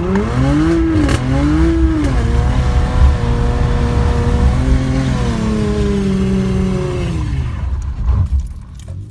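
Straight-piped Dodge Challenger V6, mid muffler and rear resonator deleted, accelerating hard: the exhaust note climbs, drops at an upshift about a second in, climbs again and shifts near two seconds, then holds steady before falling away about eight seconds in as the driver lets off.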